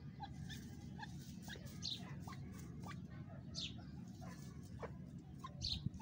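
Birds clucking softly in short notes and giving a few quick high falling chirps, over a steady low background rumble.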